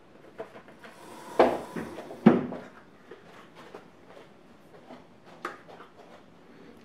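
Two sharp knocks of hard objects being handled, about a second and a half and two and a quarter seconds in, with a few faint clicks around them.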